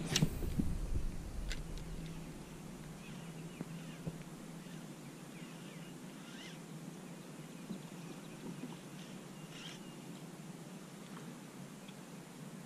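Faint, scattered bird chirps over a low steady hum, with a sharp knock right at the start.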